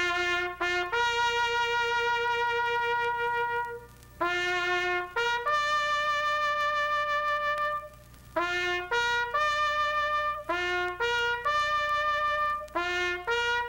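Solo trumpet music playing a slow tune of long held notes, with brief breaks between phrases and a run of shorter notes in the second half.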